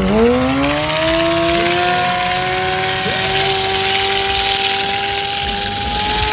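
Stunt motorcycle engine revved hard just at the start, then held at high revs, its pitch creeping slowly higher and staying up.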